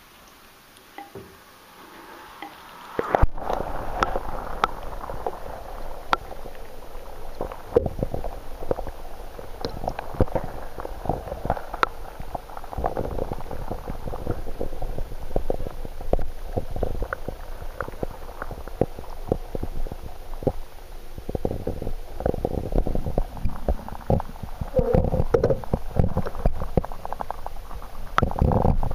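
Bath water heard through a submerged waterproof camera's microphone: a sudden jump in loudness about three seconds in as the camera goes under, then a steady muffled low rumble with frequent small knocks and clicks from water movement and handling.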